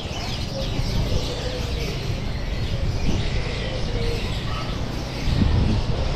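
Many caged birds chirping at once in quick, overlapping calls, with a low street rumble underneath that swells slightly near the end.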